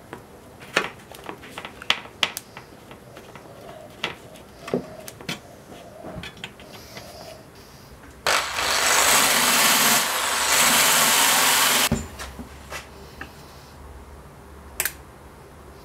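Electric drill with a small wheel attachment running against a metal plate for about three and a half seconds, starting and stopping abruptly. Before it, scattered clicks and knocks of metal parts being handled.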